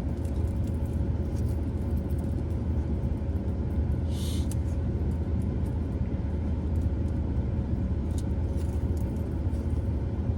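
Steady low rumble of a car engine running, with a faint steady hum above it and a brief soft hiss about four seconds in.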